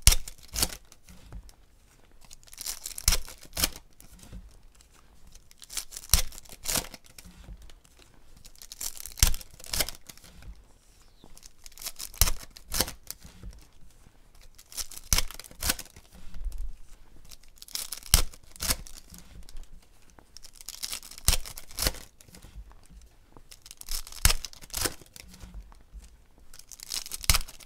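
Foil trading-card packs being torn open one after another, the wrappers tearing and crinkling in a burst roughly every three seconds.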